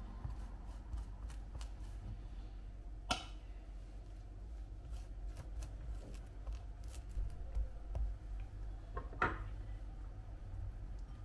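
Scattered light clicks and taps, with two sharper clicks about three seconds in and near nine seconds.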